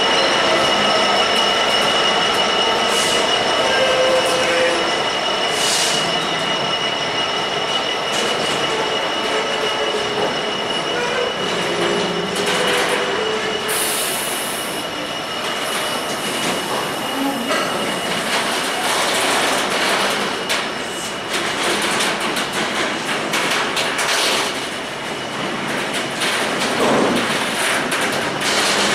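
Freight train of open box wagons rolling past, the wheels squealing with steady high tones and clicking over the rail joints.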